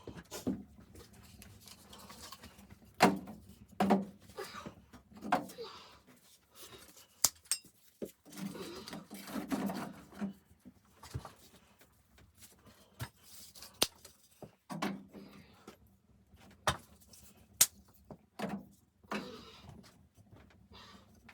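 Irregular knocks, clicks and rustling at an uneven pace, as of objects being handled and set down, with a few sharper clicks standing out.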